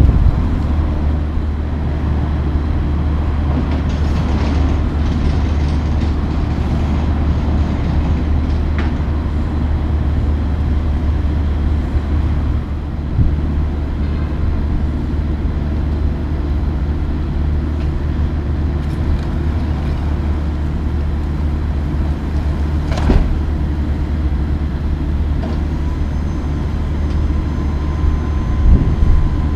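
Diesel engine running steadily, a low even drone, with a couple of sharp clanks, one about nine seconds in and another past the two-thirds mark.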